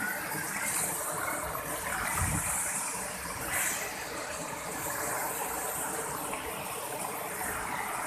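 Waterfall stream rushing and splashing over rocks, a steady hiss of water, with a short low bump about two seconds in.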